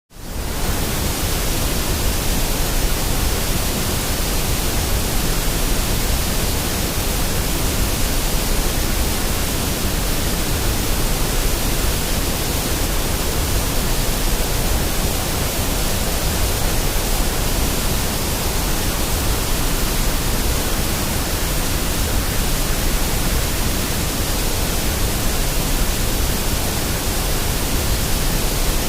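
Steady white noise for sleep or relaxation: an even, unbroken hiss spread across all pitches. It fades in over the first half second.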